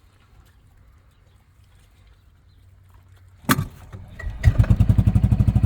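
A sharp thump, then about a second later an engine starts and runs at a fast, even putter.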